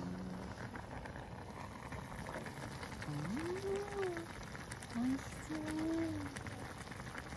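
Broth simmering in a cast-iron hot pot over a gas burner: a steady soft bubbling crackle. From about three seconds in, a voice gives three short drawn-out exclamations that rise and fall in pitch.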